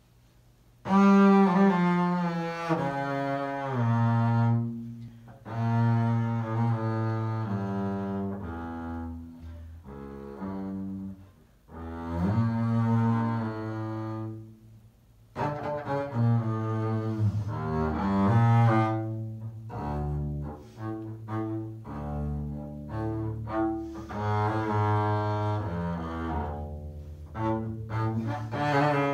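Solo double bass played with the bow: a melodic line of changing notes that begins about a second in and runs in phrases broken by short pauses.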